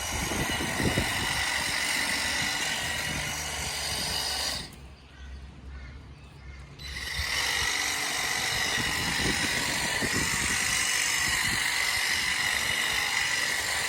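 Battery-powered Ego telescopic hedge trimmer running with a steady high whine. It stops for about two seconds, a little under five seconds in, then starts again.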